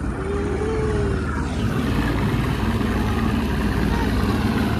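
Mercury 200 outboard motor pushing a boat along at speed: a steady engine drone mixed with rushing water and wind noise.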